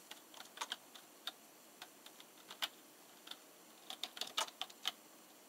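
Irregular keystrokes on a keyboard: single clicks and short runs of taps with pauses between them, busiest around four seconds in.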